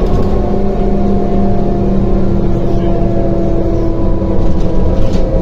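MAZ-105 articulated city bus heard from inside the passenger cabin while driving at speed: a steady drone of engine, drivetrain and road noise, with a whine that slowly falls in pitch.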